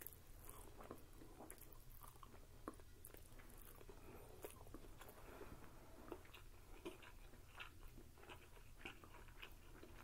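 Quiet, close-up mouth sounds of people chewing pismaniye, Turkish floss halva: many small irregular smacks and clicks, over a faint steady low hum.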